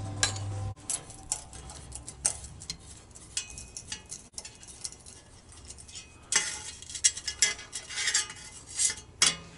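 Flathead screwdriver working the slotted steel screws out of a rusty bicycle fender: the metal blade clicks and scrapes in the screw slots. A louder run of rasping scrapes comes a little past halfway.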